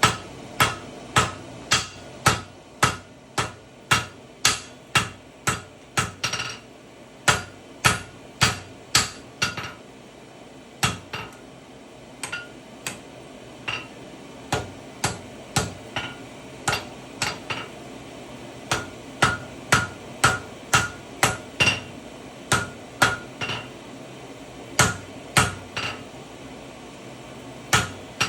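Hand hammer blows on hot steel over an anvil while forging a tomahawk, a steady run of about two strikes a second, each with a short metallic ring. The blows stop briefly a couple of times.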